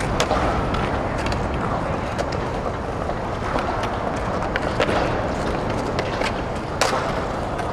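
Skateboard wheels rolling on concrete with a steady low rumble, broken by a few sharp clacks of the board popping and landing; the loudest clack comes near the end.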